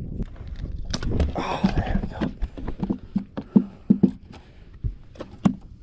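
Striped bass flopping on a bass boat's carpeted deck: a run of dull, uneven thumps, about two or three a second, with a brief rushing noise about a second in.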